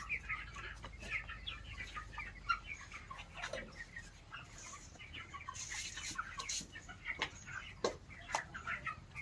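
A flock of poultry-farm chickens clucking and chirping, with many short calls overlapping throughout and a few sharp clicks among them.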